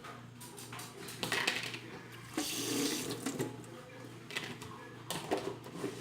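Water running from a kitchen tap in short spells, loudest for about a second near the middle, with light knocks and clatter of kitchen handling.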